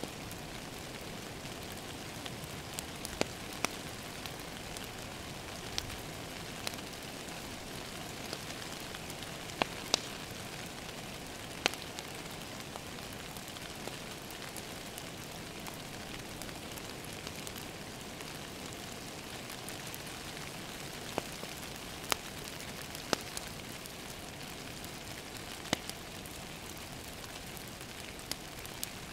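Steady rain falling on a window, with a wood fire crackling and sharp irregular pops every second or few.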